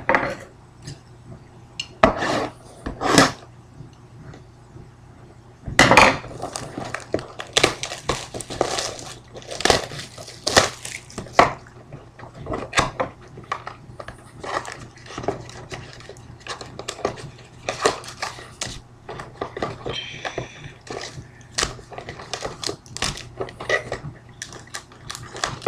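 Hands unwrapping and opening a sealed cardboard trading-card box, with scissors taken to the plastic shrink-wrap, the wrap crinkling, and the cardboard flaps and foil-wrapped packs being handled. It is a busy run of rustles, crinkles and light knocks, with one louder knock about six seconds in.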